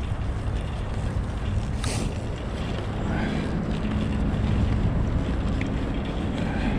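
Steady low rumble of wind on the microphone, with a faint motor hum that swells about three seconds in.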